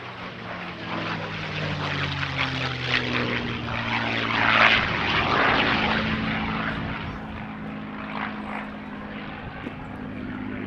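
North American P-51 Mustang's Merlin V12 engine making a display pass. The engine note builds to its loudest about four and a half seconds in, then drops slightly in pitch and fades a little as the aircraft draws away.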